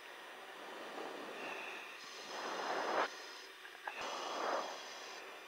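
Rushing hiss of an air-band radio channel between transmissions. The hiss swells twice, a high band of it cuts in and out sharply, and there is a short click about four seconds in.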